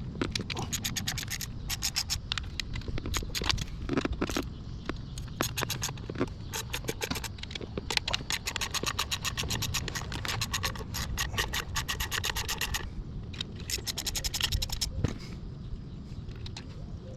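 Hand wrench working the bolts off the water pump housing on an 80 hp Mercury two-stroke outboard's lower unit: long runs of rapid clicking and scraping, easing off about thirteen seconds in and starting again briefly.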